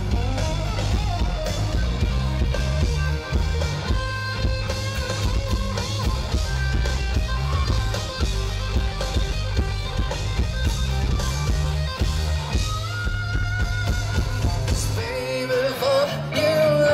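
Live rock band playing loud through a festival PA: electric guitar, bass guitar and drum kit, heard from the crowd. Near the end the heavy low end of bass and drums falls away, leaving a higher line ringing over it.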